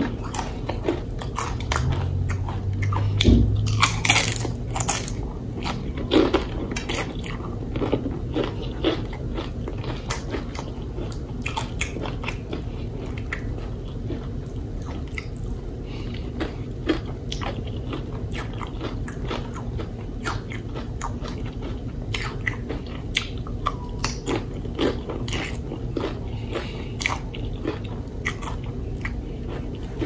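A person eating close to the microphone: repeated crunchy bites and chewing of crispy fried chicken wings and tortilla-chip nachos, busiest in the first few seconds, with a low thump about three seconds in.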